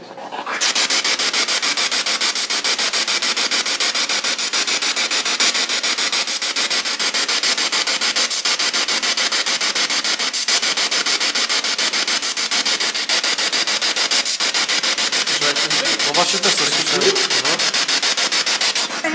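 Ghost-box style radio scanner sweeping stations, played loud through a small JBL portable speaker: continuous static chopped into a fast, even pulse. Faint voice-like fragments come through about sixteen to eighteen seconds in.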